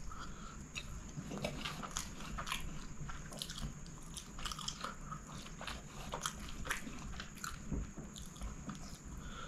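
Close-miked chewing and lip-smacking of a mouthful of chicken kottu roti, with fingers picking at the pile of food: a string of irregular short, wet clicks.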